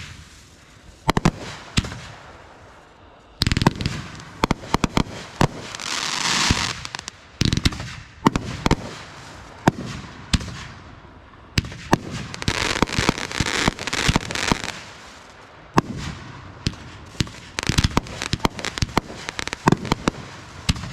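Fireworks show in progress: a rapid run of firework bangs and booms, with two longer stretches of dense crackling about a third of the way in and again past the middle.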